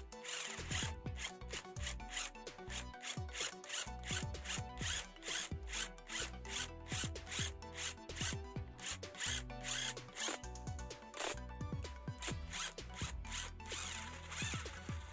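Twist drill bit boring into a block of wood, driven by a Makita cordless impact driver through a drill chuck adapter: a scraping, rubbing cut that pulses quickly, several times a second.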